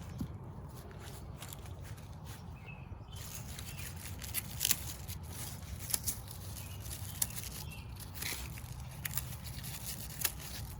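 Outdoor rustling and crackling, with sharp clicks and snaps crowding in from about three seconds in, over a steady low rumble, and a few faint bird chirps near the start.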